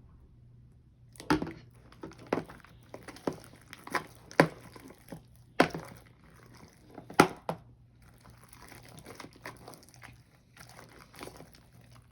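Sticky clear slime being kneaded and pulled by hand, with irregular sharp wet clicks and pops as it sticks and lets go.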